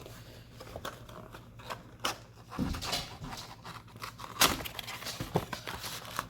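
Cardboard trading-card box being opened by hand: scattered rustles, scrapes and light taps of cardboard and wrapped packs being handled.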